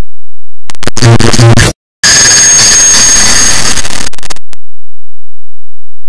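A clock-ticking sample sped up to an absurd rate, so that the ticks merge into harsh, clipped, distorted noise. It starts under a second in, cuts out for a moment just before two seconds, then runs as a hissing wall of noise until it stops about four and a half seconds in.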